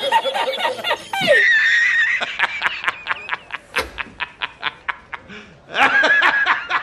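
High-pitched laughter: a squealing laugh, then a long run of quick, short snickers, then more squealing laughter near the end.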